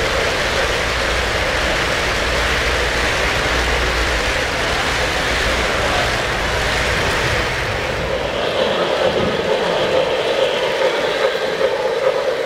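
O-scale model freight train rolling past on its track: a steady rumble and clatter of wheels and cars. About eight seconds in the deep rumble drops away and the sound turns more uneven.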